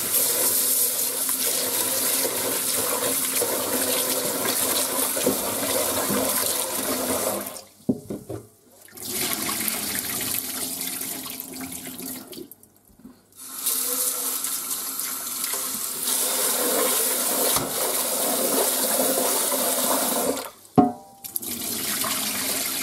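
Kitchen tap running into a metal rice cooker pot in a stainless steel sink, as glutinous rice is swished by hand and the rinse water poured off: washing the rice before cooking. The water sound breaks off briefly twice, about eight and thirteen seconds in, and there is a sharp knock near the end.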